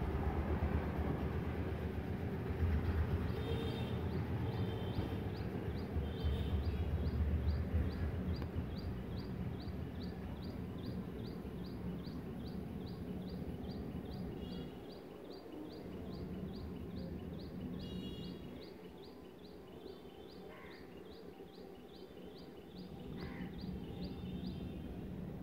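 Outdoor ambience: a low rumble like distant traffic, louder in the first third, under a steady series of short high chirps repeated a few times a second.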